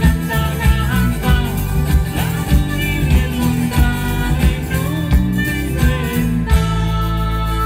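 Live folk music: a diatonic button accordion playing a quick rhythmic tune with a woman singing over a steady percussion beat. About six and a half seconds in the beat stops and the accordion holds a sustained chord.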